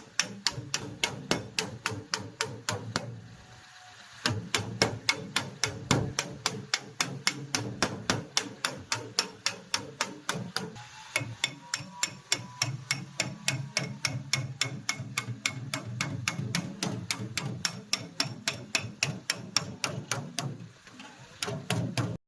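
Repeated hammer blows at a steady pace, about three to four strikes a second, with a short pause about three seconds in and another near the end.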